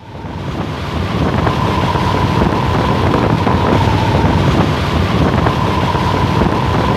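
Wind rushing over the microphone of someone with their head stuck out of a moving car's window: a loud, steady rush of air with a thin, steady whistle running through it. It fades in over the first second.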